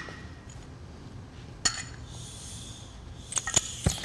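A sparse few metallic clicks from handling a steel tube and a gas torch, then a brief thin hiss of gas from the hand-held torch about two seconds in, and a quick run of sharp clicks near the end as the torch is lit.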